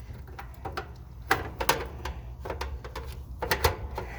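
Irregular clicks and knocks of a new 370-volt air conditioner run capacitor being pushed and squeezed into the old one's mounting bracket, where it is a tight fit. The clicks are scattered, with a pair of sharper knocks a little past a second in and another pair near the end.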